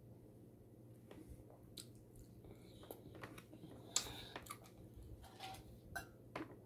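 Close-miked mouth sounds of a person chewing saucy chicken: faint wet smacks and clicks. About four seconds in comes a sharper click of a fork against a ceramic plate.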